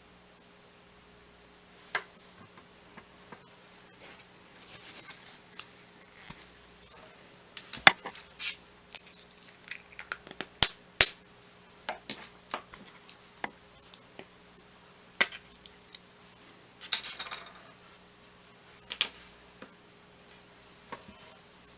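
Irregular small clicks, taps and brief rustles of hands handling small hard craft items on a table, over a faint steady hum.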